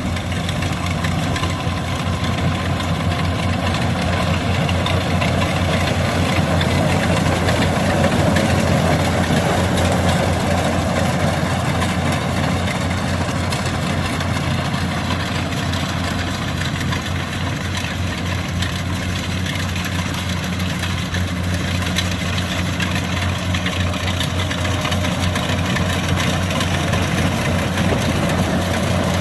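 Diesel engine of a tracked rice-field machine running steadily with a deep, even hum that swells slightly about eight seconds in.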